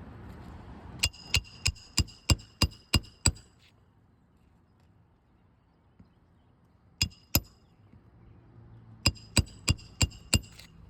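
Roofing hammer driving nails back into asphalt shingles: a quick run of eight ringing metallic strikes, two more in the middle, then five more near the end.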